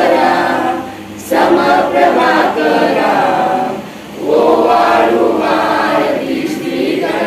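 A group of men's and women's voices singing a Marathi devotional aarti (bhupali) together, in phrases broken by short pauses about a second in and about four seconds in.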